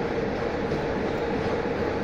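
060-EA1 electric locomotive pulling a passenger train out of the station, a steady mid-pitched hum over a continuous rumble.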